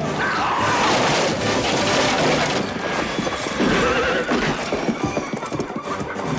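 Several horses galloping hard on a dirt street, a dense clatter of hoofbeats, with a horse whinnying partway through.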